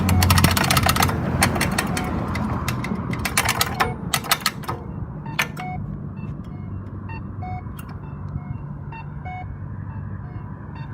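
Accessible pedestrian signal crosswalk speakers ticking: a fast run of sharp clicks for about the first five seconds, then a short beeping locator tone repeating about once a second. Passing traffic rumbles underneath.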